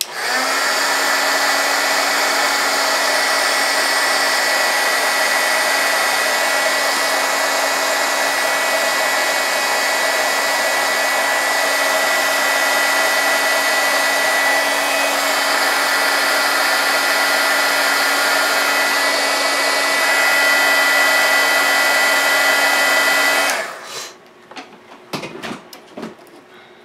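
Handheld electric blow dryer running steadily with a hum and a high whine, drying freshly painted watercolour-marker artwork on paper; it is switched off suddenly about three-quarters of the way through, leaving a few faint handling clicks.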